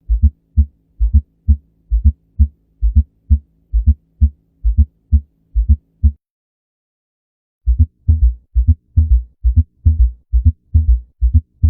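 Recorded heart sounds: regular low thumps of a heartbeat, about two a second, with a steady low hum under them, stopping about six seconds in. After a short pause a second heart sound recording starts, with quicker beats, about three a second.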